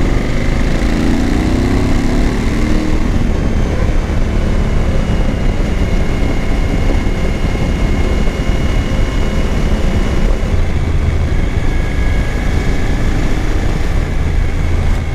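Suzuki V-Strom 1000's V-twin engine running steadily while riding, under heavy wind and road noise on the microphone.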